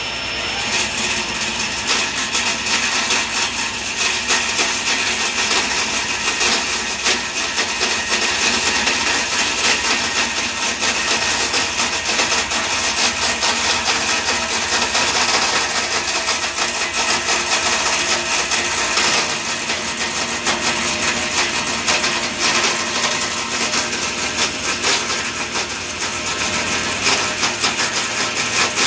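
Table saw blade cutting into a spinning teak post in a table-saw lathe jig, the post turned by a cordless drill: a steady, continuous cutting noise with the saw and drill running.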